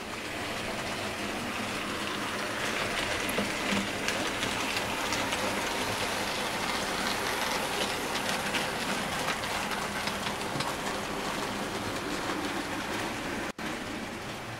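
00 gauge model goods train running along the track: a steady rattling clatter of small wagon wheels clicking over rail joints, cut off for an instant near the end.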